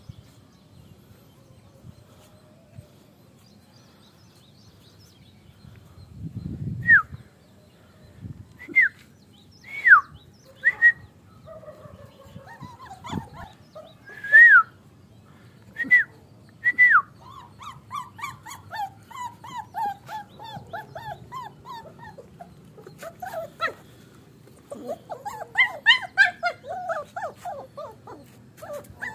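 Puppies whining and whimpering. After a few quiet seconds comes a string of sharp, high whines that fall in pitch, then a run of shorter, lower wavering whimpers that grows busier near the end.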